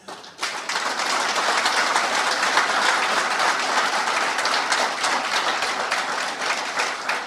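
Audience applauding in a hall, a dense steady clapping that starts just after the opening and dies away near the end.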